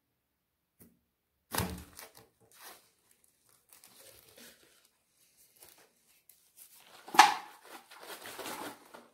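Woven plastic soil-filled grow bags being handled: a thump about one and a half seconds in, then scattered rustling and crinkling, with a sharp crackle about seven seconds in and denser rustling after it.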